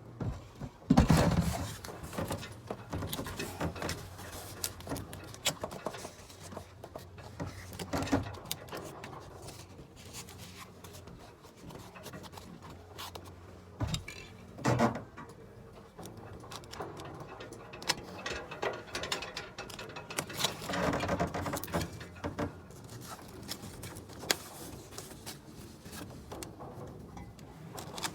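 Installation work noise: irregular metal clicks, knocks and clanks of hand tools and fittings being worked, with a few louder knocks.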